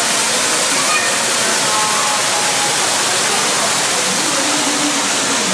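A steady, even rushing hiss of the kind falling water makes, with faint voices underneath.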